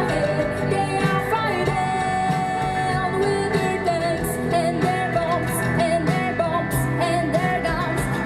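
Live band playing a rock song, with a singer's voice over the instruments and cymbal hits.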